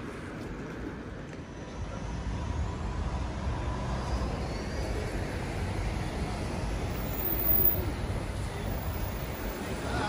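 City street traffic: road vehicles running past, with a double-decker bus among them. The low engine rumble swells from about two seconds in.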